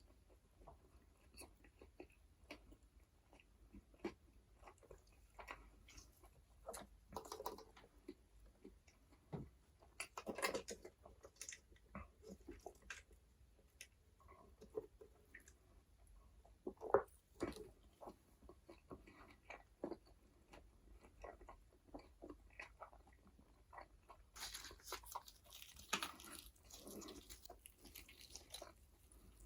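Close-miked chewing and biting of McDonald's burgers and french fries: irregular wet mouth clicks and soft crunches, with one sharper snap about halfway and a denser run of crackling near the end.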